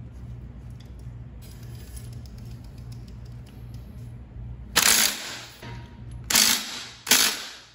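Cordless power driver with a socket extension run in three short bursts on the rear brake caliper's mounting bolts, tightening them, over quieter background music with a low pulsing beat.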